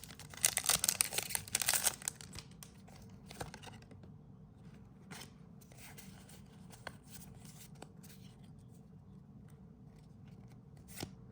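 A foil Pokémon booster pack wrapper being torn open, crinkling for about the first two seconds. After that come only faint, scattered rustles and taps as the cards are handled.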